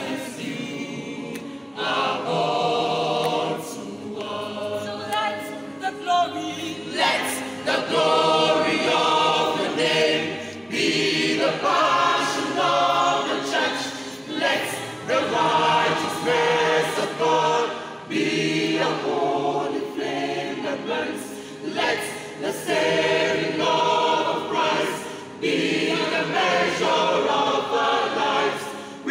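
A church choir of men's and women's voices singing a Christian song together.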